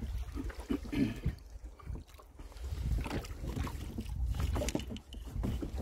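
Rowboat oars dipping and pulling through the water, with short clicks and splashes in uneven clusters. A low wind rumble on the clip-on microphone runs underneath.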